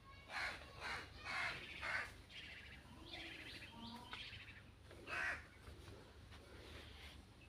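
A crow cawing: four caws in quick succession, about two a second, then fainter calls and one more loud caw a few seconds later.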